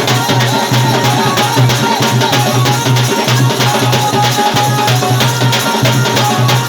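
Folk dance music with fast, dense drumming and a wavering melody line above it, going on without a break.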